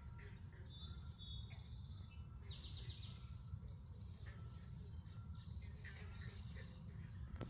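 Several birds chirping and trilling in short high calls over a steady low rumble.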